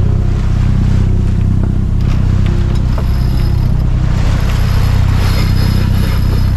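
A sailboat's inboard diesel engine runs steadily while motoring, a loud, even low drone. Water rushes along the hull, growing louder in the last couple of seconds.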